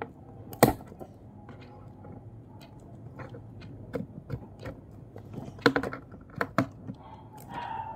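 Hands working on a doll's cardboard and plastic packaging, freeing it from its ties: scattered small clicks and taps, the sharpest about a second in and a quick cluster near six seconds.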